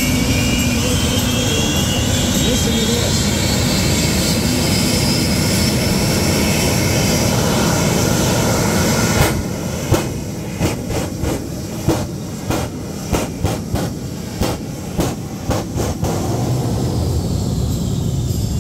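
Twin jet engines taken from a British Hawker aircraft running in a fire truck with a steady roar and a rising whine. About halfway through come about a dozen sharp, irregular bangs over some six seconds as flames fire from its exhaust stacks, then the steady jet roar returns with the afterburner lit.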